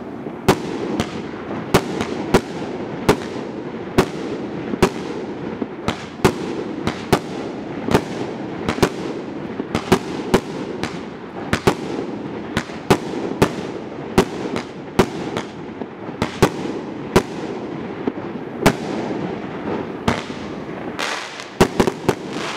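Evolution Fireworks Rambam 3.0 firework cake firing its shots in steady succession: sharp bangs about one to two a second over a continuous rushing noise, with a quick cluster of bangs near the end.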